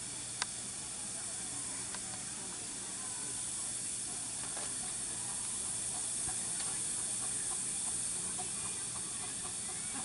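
Miniature steam locomotive hissing steam steadily, a little louder midway, with a few faint clicks.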